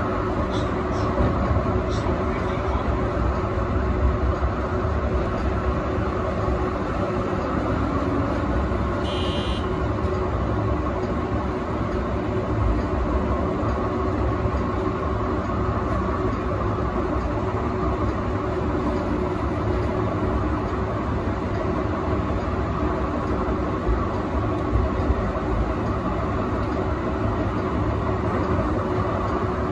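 Yarra Trams A2-class tram running steadily along street track, a continuous rumble of wheels on rails and running gear heard from the front of the tram. There is a brief high-pitched chirp about nine seconds in.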